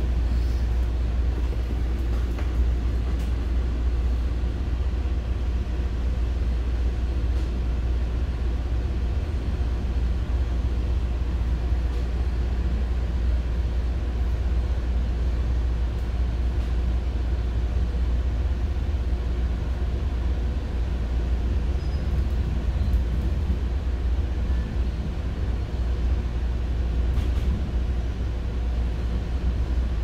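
Inside a moving passenger train car: the steady low rumble of the train running along the track, with a few faint ticks.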